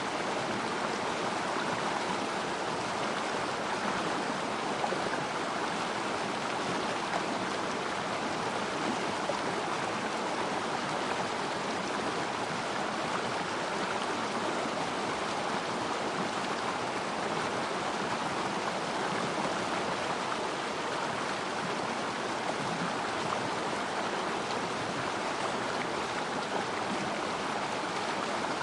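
Small river stream flowing, a steady even rush of water without breaks.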